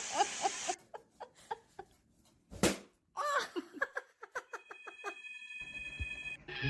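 Laughter in quick short bursts, about four or five a second, with a single sharp sound about two and a half seconds in.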